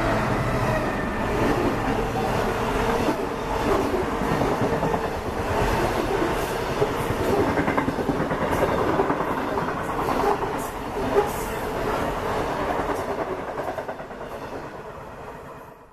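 Diesel-hauled freight train of high-sided box wagons running through at speed, wheels clattering over the rail joints, the sound fading away in the last few seconds as the train goes.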